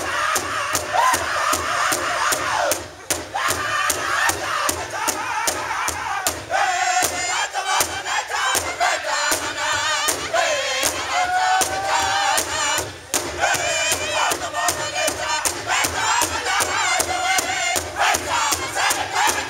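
Powwow drum group: several singers striking one large shared hide drum in a fast, steady beat while singing together in full, strained voice. The song breaks off briefly about 3 seconds in and again near 13 seconds.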